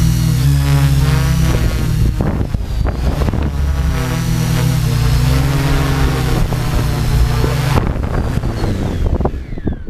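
Tarot 690S hexacopter's six brushless motors and propellers whirring in flight, their pitch wavering up and down as the throttle changes. About eight seconds in the sound drops as the craft sets down on the track, and near the end the motors spin down with a falling whine.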